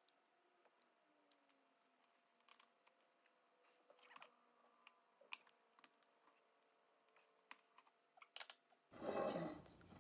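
Near silence with faint scattered clicks and taps as lemon halves are squeezed in a hand-held citrus press. A louder rustling scrape starts near the end.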